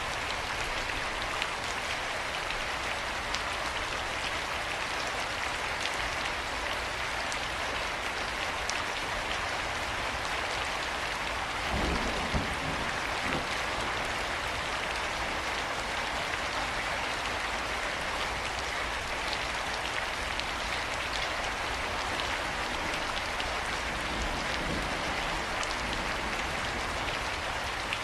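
Steady heavy rain falling on surfaces, an even hiss with scattered drip ticks. A short low rumble comes about twelve seconds in.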